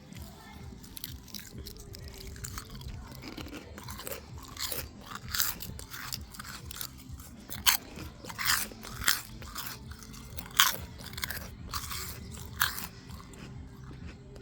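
Crunchy crisps being chewed: a run of sharp, irregular crunches, loudest and most frequent from about five to thirteen seconds in.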